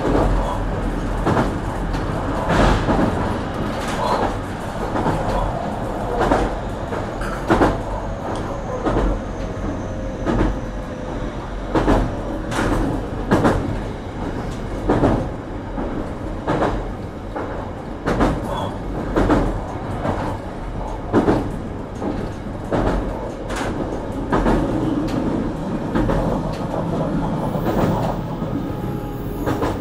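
Inside a JR Kyushu BEC819 DENCHA battery electric train carriage: a steady low rumble with knocks and clatters roughly once a second.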